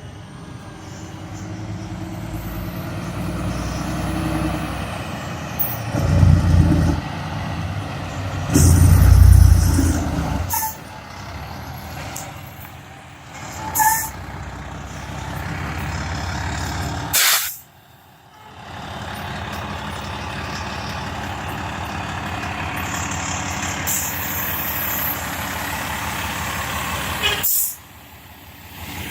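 Heavy diesel fire trucks pulling up and idling, with two loud engine surges about six and nine seconds in and several short air-brake hisses.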